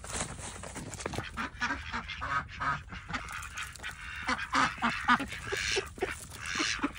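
A flock of domestic ducks quacking over and over, many short calls overlapping from about a second and a half in and growing louder toward the end.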